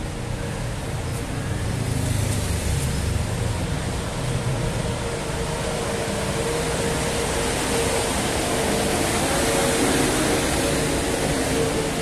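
Steady road-vehicle noise: an even rumble with a held hum running through it.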